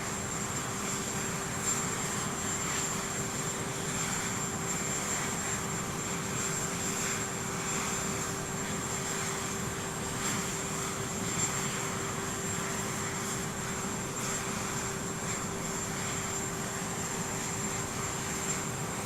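Aircraft engine noise running steadily, an even rushing sound with a constant low hum and a faint high whine, with no change in level.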